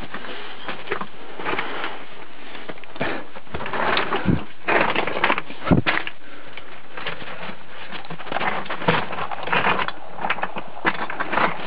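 Someone scrambling over loose rocks with a handheld camera: irregular crunching and scuffing of footsteps on stone, with rustling handling noise on the microphone and two dull thumps about four and six seconds in.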